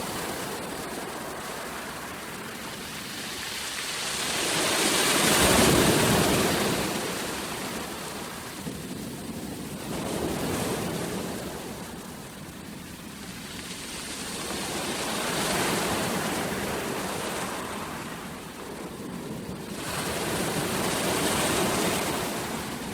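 Ocean waves breaking on the shore, one surge of surf about every five seconds, each swelling and then washing back.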